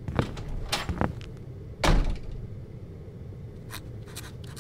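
A door being shut: a few light knocks, then a heavier thud a little before two seconds in, over a low steady room hum.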